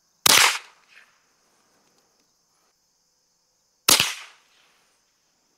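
Two shots from a Remington 597 semi-automatic .22 LR rifle firing CCI Mini-Mag hollow points, about three and a half seconds apart. Each is a sharp crack with a short decaying tail.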